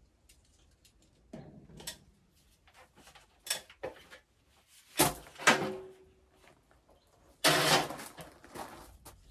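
Knocks, rustles and clatter from hanging a rolled bamboo blind while working on a stepladder. There is a sharp clank with a short ring about five seconds in, and a longer scraping clatter a couple of seconds later.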